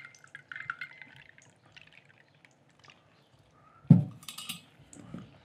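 Tea poured from a teapot into a cup, the pitch rising slightly as the cup fills, trailing off about a second and a half in. About four seconds in there is a loud thud as the teapot is set down on the wooden table, followed by a brief higher-pitched rattle.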